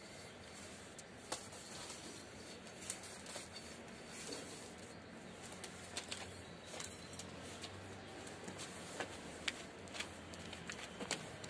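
Scattered light clicks and rustling of a coaxial cable being pulled through a wall hole and looped by hand, over a faint steady background.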